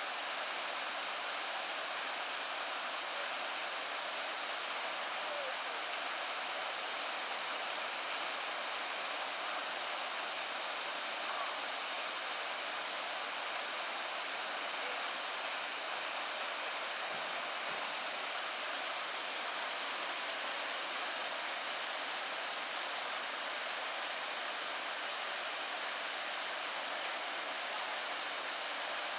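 Steady rush of flowing water from a creek or waterfall, even and unbroken, with no low rumble.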